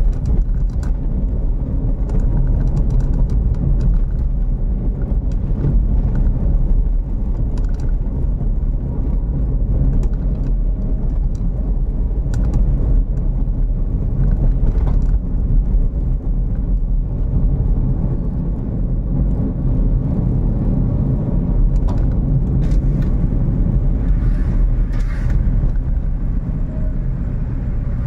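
Steady low rumble of a car driving along a road: engine and tyre noise heard from inside the cabin.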